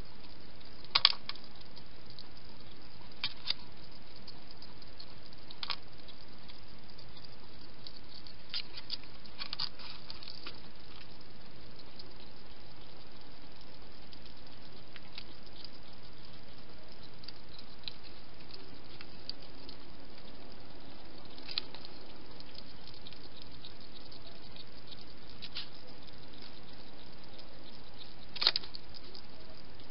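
A wild hedgehog eating from a food bowl: sharp crunching clicks every few seconds, loudest about a second in and again near the end, over a steady hiss.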